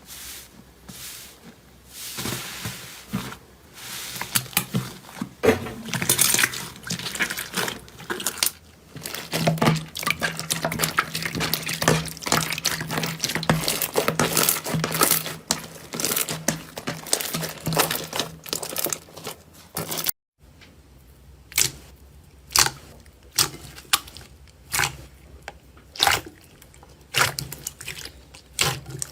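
Slime being squeezed and kneaded by hand: wet squishing and sticky crackling. About twenty seconds in it cuts off suddenly, and a run of separate sharp clicks or pops follows, about one a second.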